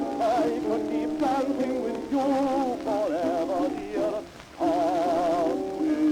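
Waltz music playing from an old 78 rpm gramophone record, thin and without bass, with melody lines wavering in a wide vibrato. There is a short lull about four seconds in.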